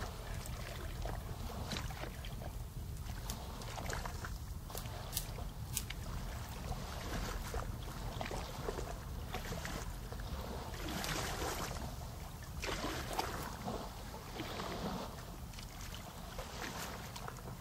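Water lapping and splashing around a boat over a steady low rumble, with scattered small knocks; the water noise swells and fades in waves.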